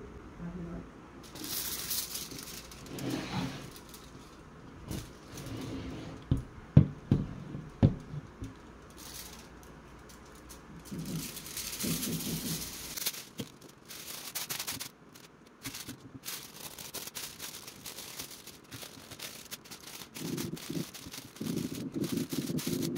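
Aluminium foil rustling and crinkling as it is handled and pressed into a ceramic baking dish, with a few sharp knocks about a third of the way in.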